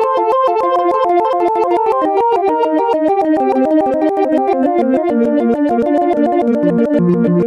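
Synthesizer playing a rapid, even run of short keyboard-like notes, an arpeggio pattern that steps gradually lower in pitch.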